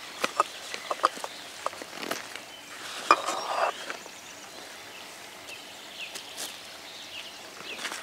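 Primus Lite+ cook set being unpacked from its fabric pouch: light clicks and knocks of the pot, lid and metal cup, with a louder scraping rustle about three seconds in as the cup comes out of the pot.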